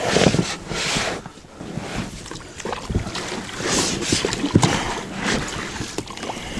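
Rowing an Aqua 260 inflatable boat: aluminium oars stroking and splashing through the water, with a few sharp knocks.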